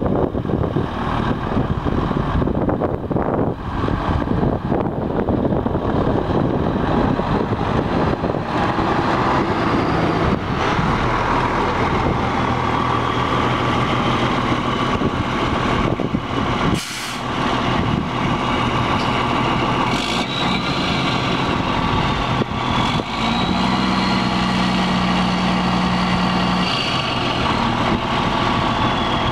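Diesel engine of a 1998 Freightliner Century truck tractor, running as the truck moves across a gravel yard with wind on the microphone, then idling steadily for the rest of the time.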